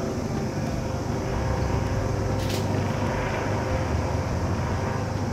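Steady low outdoor rumble of a distant city, with one short sharp crackle about two and a half seconds in.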